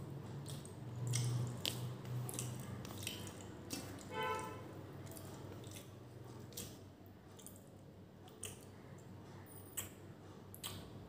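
Wet squishing of rice and beef curry being mixed by hand on a steel plate, with chewing and small sticky clicks. There is a brief pitched squeak about four seconds in.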